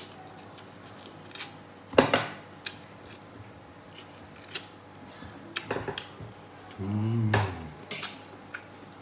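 A metal fork clinking and scraping against a metal plate while eating noodles, with a sharp clink about two seconds in and a few lighter clicks around six seconds. A short hummed "mm" comes from the eater about seven seconds in.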